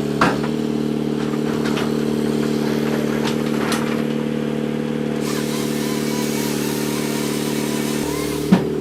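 Turbocharged John Deere diesel engine of a Woodbine Pro firewood processor running steadily, with a few sharp knocks from the machine working wood.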